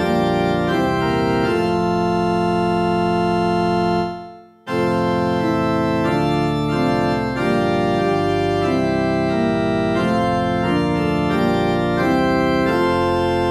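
Background organ music in slow, held chords. It fades out about four seconds in, then starts again a moment later.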